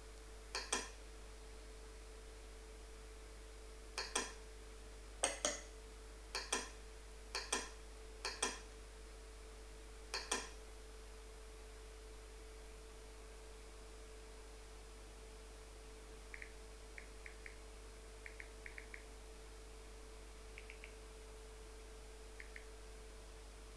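Computer mouse clicking: several sharp clicks, each a quick press-and-release double, over the first ten seconds. Later come a few faint, light ticks in small clusters, all over a steady faint electrical hum.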